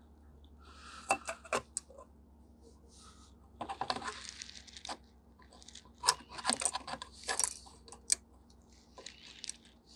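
Small clicks, taps and scrapes of fingers working the opened original iPhone's aluminium back and internal parts while seating a connector, coming in clusters about a second in, around four seconds in and again between six and eight seconds.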